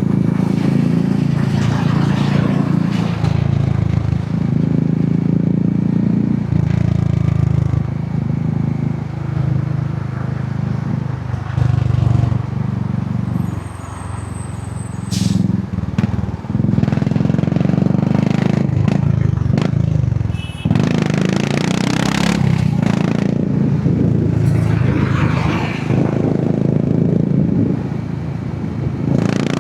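Royal Enfield Hunter 350's single-cylinder engine and exhaust on the move, its note rising and falling with throttle and gear changes. There is a brief dip in the middle and a stretch of rushing noise about two-thirds of the way in.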